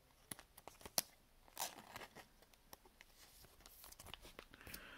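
Faint rustles and small clicks of a stack of Panini trading cards being handled, the cardstock sliding and tapping against itself as cards are moved from front to back.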